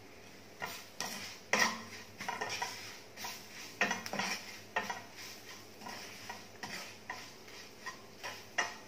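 Wooden spatula stirring and scraping green chillies and spice powder around a non-stick kadhai, in short, irregular strokes.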